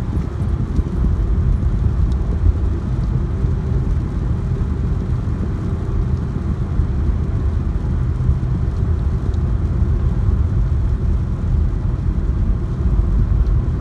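Rain falling steadily, heard as a dense low rumbling noise that is loudest in the bass with little hiss up high.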